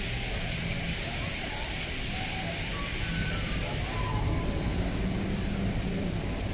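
Steady city traffic and street noise: a low rumble under an even hiss, with faint distant voices. The hiss lessens about four seconds in.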